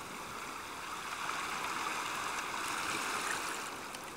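A steady, even rushing noise like flowing water, with no distinct events.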